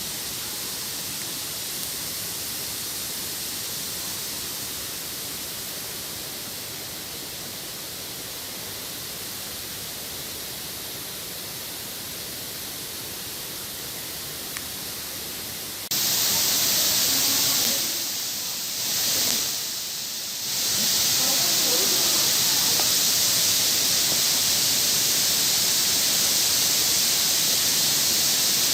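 Steady hiss of rushing water. Just over halfway through it suddenly becomes much louder and brighter, dips briefly twice, then runs on loud and steady.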